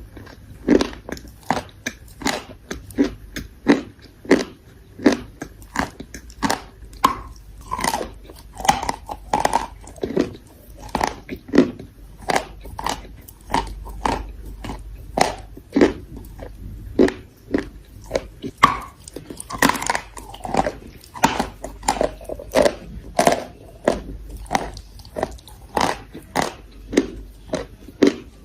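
Close-up crunching of chalk being bitten and chewed, with clay paste, in a steady rhythm of about two crisp crunches a second.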